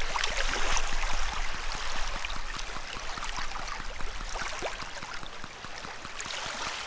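Wood campfire crackling and popping steadily, with dense sharp snaps and a few brief hissing squeaks.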